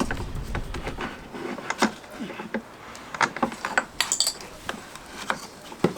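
Light irregular knocks and clicks of a wooden floor plank being handled and worked into the gap in the last row, with a brief metallic clink about four seconds in and a sharper knock near the end.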